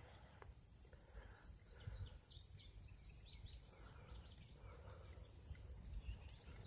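Near-silent outdoor ambience: faint, distant bird chirps through the middle stretch over a steady high insect trill.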